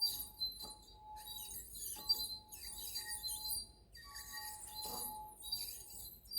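Glass clinking: a few separate strikes, irregularly spaced, each leaving a ringing tone.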